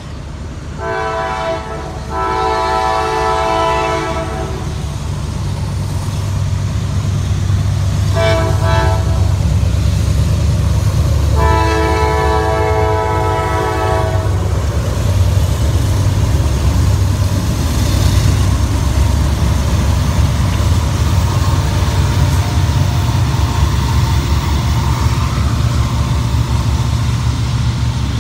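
Norfolk Southern freight train blowing its multi-tone air horn in the grade-crossing signal: two long blasts, a short one, then a long one. The horn sounds over the low drone of the diesel locomotives as they pass, followed by the steady rolling of covered hopper cars over the rails.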